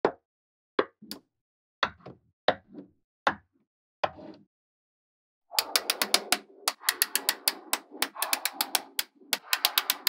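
Small metal magnetic balls clicking and clacking together as blocks and rows of them are set down and snapped into place: a few separate clacks in the first half, then from about halfway a quick run of sharp clicks with rattling in between.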